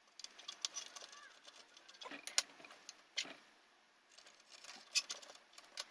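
Light, irregular clicks and small scrapes of metal and plastic parts being handled while a 2.5-inch drive is fitted into a Mac Mini's drive bay.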